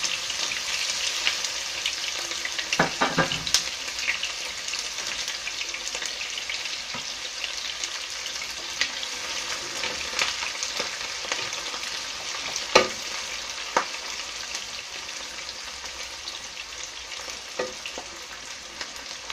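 Sliced onion sizzling as it fries in hot oil in a pan, the sizzle fading gradually, with a few sharp clicks.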